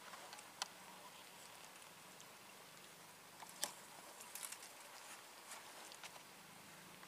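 Near silence with a few faint, sharp clicks and ticks scattered through it, the loudest about halfway, followed by a small cluster of them.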